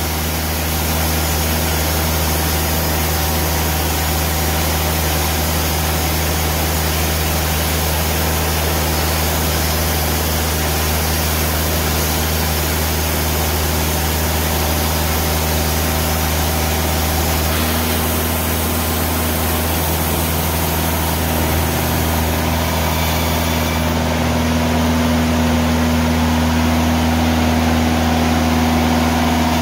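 Timberking hydraulic band sawmill running steadily as its band blade cuts along a log; the blade is worn, near the end of its life, but still cutting. About three-quarters of the way through, the high hiss drops away and the sound gets slightly louder.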